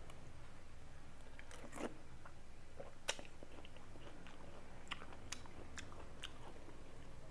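Close-up eating sounds of biting and chewing crunchy raw mango and jicama rujak: a few short, sharp crunches and clicks spaced irregularly over a faint steady hum.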